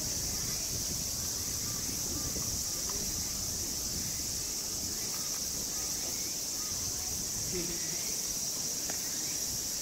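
Steady, high-pitched insect chorus of late summer, unbroken throughout, with faint distant voices of people underneath.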